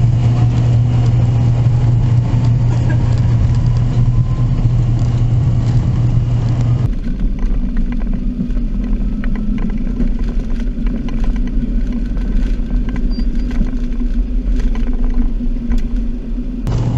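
Cessna Citation X's twin rear-mounted Rolls-Royce AE3007 turbofans at takeoff power during the takeoff roll, a loud steady rumble heard inside the jet. A faint rising whine comes through in the first few seconds.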